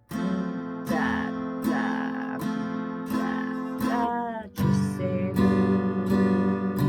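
Acoustic guitar strummed in a three-four waltz pattern, a bass note followed by two downstrokes, with a strum about every three-quarters of a second. The chord changes about four and a half seconds in.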